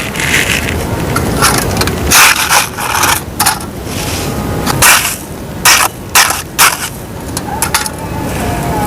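Close-miked scraping and crumbling of dry white dirt: a run of irregular scratchy strokes, with a few sharp, louder cracks in the second half.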